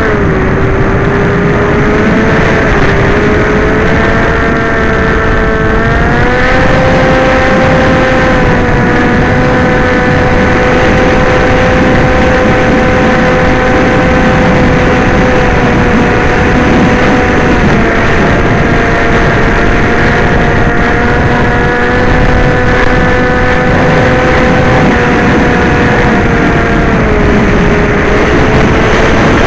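Electric motor and propeller whine of a radio-controlled aircraft in flight, over a loud rush of wind. The whine steps up in pitch about six seconds in as the throttle opens, then eases down twice later on.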